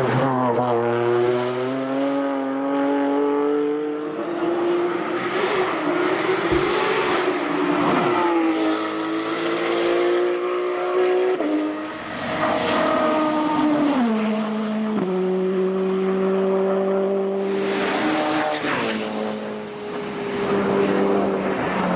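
Hillclimb race car engine pulling hard at high revs, pitch climbing and then stepping down at gear changes several times.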